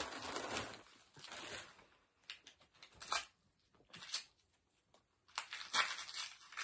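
A plastic carrier bag rustling, then gift-wrapping paper crinkling and tearing in short, scattered bursts as a present is unwrapped.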